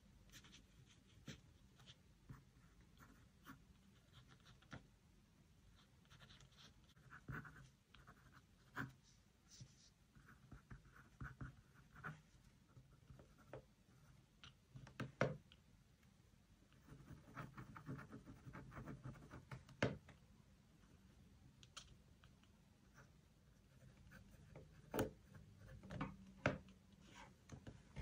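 Pen writing on paper: soft scratchy strokes in short runs, with scattered sharp taps and clicks of stationery being handled.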